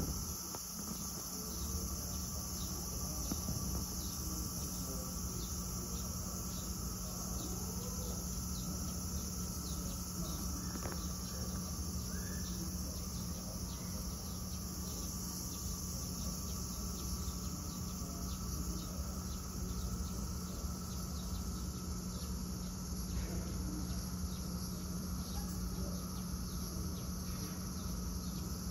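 Cicadas droning steadily in a high-pitched, unbroken buzz, with a low steady hum underneath.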